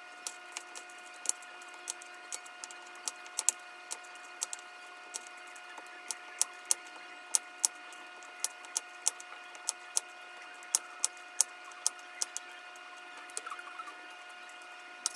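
Kitchen knife chopping potatoes on a wooden cutting board: irregular sharp knocks of the blade on the wood, one or two a second, over a faint steady hum.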